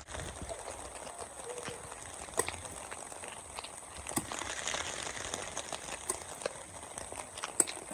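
Faint outdoor background noise with scattered small clicks and crackles, the sharpest about two and a half, four and seven and a half seconds in.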